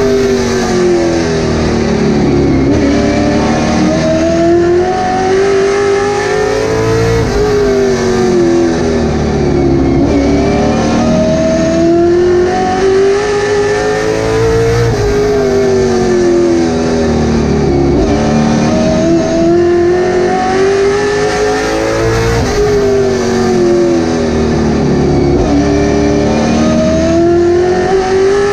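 Late Model stock car's V8 engine heard from inside the cockpit at racing speed. It runs loud, and its pitch climbs and drops again every few seconds as the driver gets on and off the throttle around the short oval.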